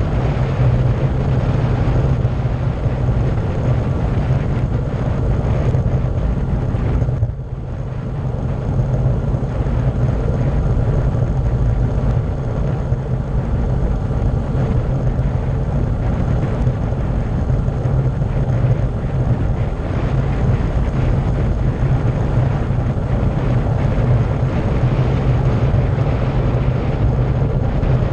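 Wind rushing over the microphone of a camera on a bicycle coasting fast downhill on a paved mountain road: a loud, steady low rumble. It dips briefly about seven seconds in.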